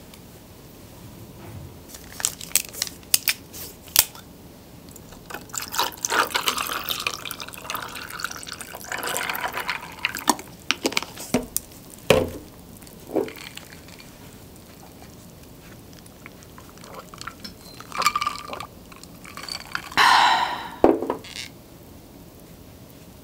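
A drink poured from a plastic bottle over ice into a glass mug, with sharp clicks and clinks of the bottle and ice before and after the pour. Near the end, sauce is poured from a small cup onto a bowl of noodles.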